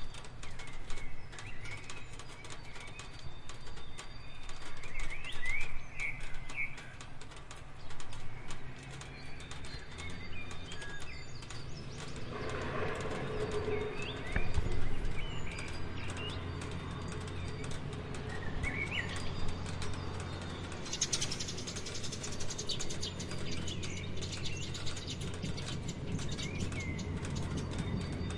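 Rain falling as many separate drop taps, with birds chirping now and then and a steady low hum underneath; the rain grows denser about two-thirds of the way through.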